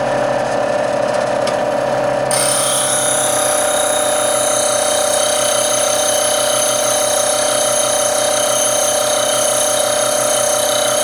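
An 8-inch variable-speed bench grinder running at its lowest speed with a steady motor hum. About two seconds in, a steel drill-bit shank is pressed to the wheel and a steady high grinding hiss starts and holds, as the end of the shank is shaped into a detail cutter.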